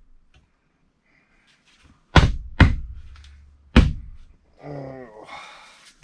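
Three heavy hammer blows on wooden framing: two in quick succession about two seconds in, a third about a second later, each with a short low ring. A brief pitched sound and some rustling follow near the end.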